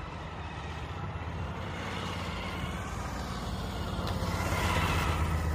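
Motorcycle engine running at low speed as the bike circles, getting louder as it passes close by about four to five seconds in.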